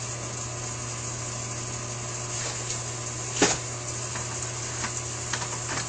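A few light clicks of small Holley 4000 carburetor parts being handled and fitted, the sharpest about three and a half seconds in and a few smaller ones near the end, over a steady low background hum.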